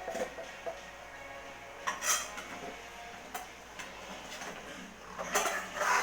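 Short clattering knocks and scrapes of hard objects being handled, once about two seconds in and again in a longer cluster near the end, over a faint steady hum.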